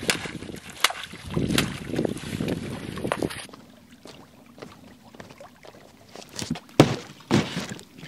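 Footsteps on bare rock and rustling, with water lapping at the shore's edge. The noise is busier for the first three seconds or so, then quieter, with a few sharp knocks near the end.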